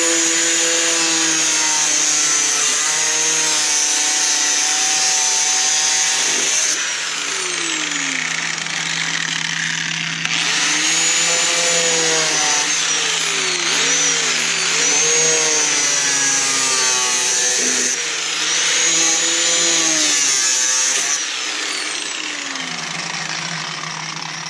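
Corded angle grinder with a thin cut-off wheel slicing through rusted sheet steel in a pickup's cab corner. Its high whine dips and recovers several times as the wheel bites into the metal and eases off. Near the end the motor is switched off and winds down.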